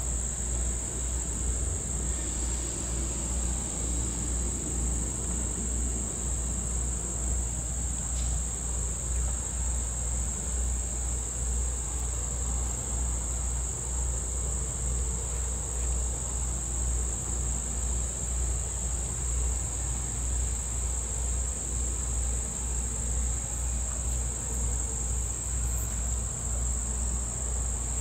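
Steady high-pitched insect chorus, crickets or similar summer insects, over a low steady rumble.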